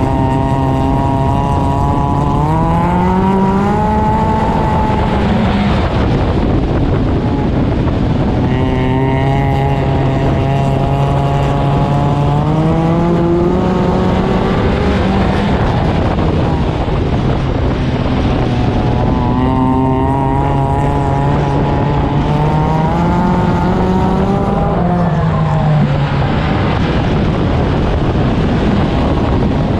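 Four-cylinder Stinger 8 race car engine under racing load, its pitch climbing as the driver accelerates and falling back when he lifts, three times over, with a steady rush of wind and road noise.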